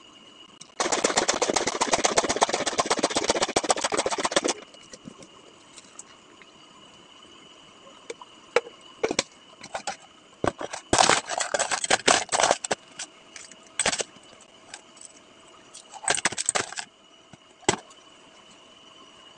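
Ice cubes clattering into a plastic cup: a dense rattle lasting about four seconds near the start, then shorter bursts of clinking about halfway through and again near the end.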